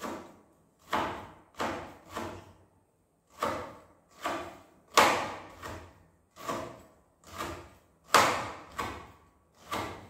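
Kitchen knife chopping and mincing meat on a board, a steady run of sharp knocks about every two-thirds of a second, with a short pause about three seconds in.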